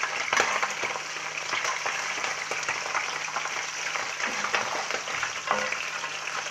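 Pieces of wild goat liver sizzling and crackling steadily in hot oil in a cast-iron frying pan. A metal spatula clicks and scrapes now and then as the pieces are lifted out.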